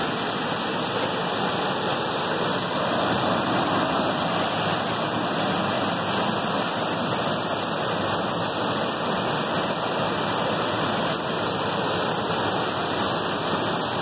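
Waterfall pouring down a narrow rock cleft, a steady even rush of water close to the microphone.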